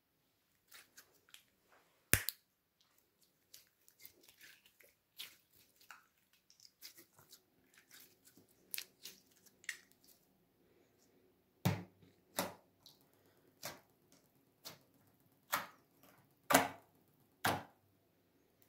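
Jelly slime squeezed and kneaded by hand, giving irregular sticky clicks and squelching pops. A sharp pop comes about two seconds in, and a louder run of pops, roughly one a second, fills the second half.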